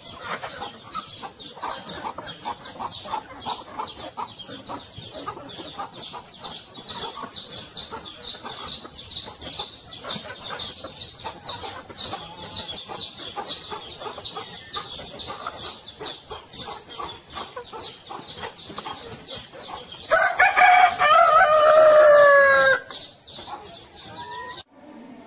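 A flock of chickens calling, with a continuous run of short, high calls repeating rapidly. About twenty seconds in, a rooster crows loudly for about two and a half seconds, its call falling in pitch at the end.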